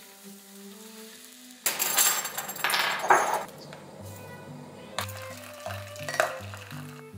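Light background music over kitchen sounds: a loud rush of noise about two seconds in, lasting about a second and a half, then a few light clinks near the end.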